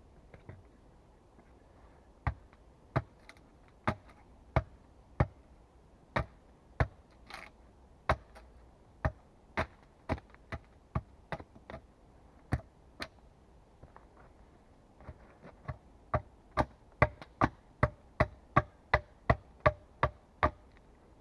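Repeated sharp blows of a hand tool striking wood, about one to two a second, quickening to about three a second near the end.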